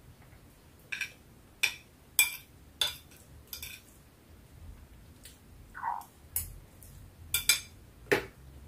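Metal fork and spoon clicking and scraping against a plate on a plastic tray while someone eats, about ten short sharp clinks spaced through, with a quick pair near the end.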